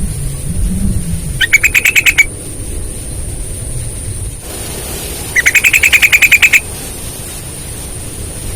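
Sooty-headed bulbul (trucukan) singing two fast, rolling trills of rapidly repeated notes. The first comes about a second and a half in; the second, longer one comes about five and a half seconds in.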